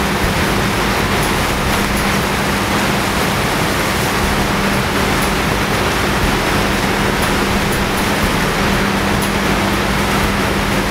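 Steady rush of runoff water pouring over a spillway into the river, an even roar without breaks, with a steady low hum beneath it.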